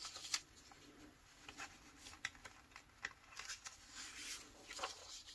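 Faint rustling and light taps of printed paper sheets being lifted, turned and laid down by hand, in short scattered bursts.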